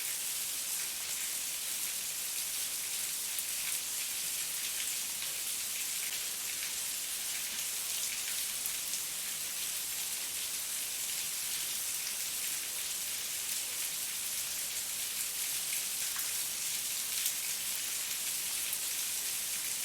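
Heavy rain falling steadily, a dense even hiss flecked with the ticks of individual drops striking a surface.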